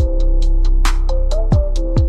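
Electronic background music with a steady beat: kick drums, crisp hi-hats and snares over a sustained synth melody and deep bass.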